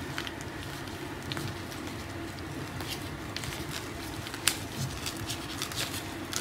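Soft rustling and light crinkling of thin plastic food-prep gloves handling and peeling apart sheets of pastry wrapper, with scattered faint clicks, the sharpest about four and a half seconds in, over a steady low hum.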